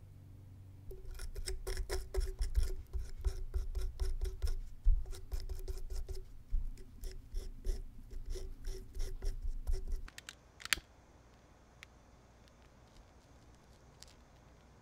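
Hobby knife blade scraping and cutting at the cardboard tube of a ground bloom firework in quick, rough strokes, stopping abruptly about ten seconds in. A single sharp click follows.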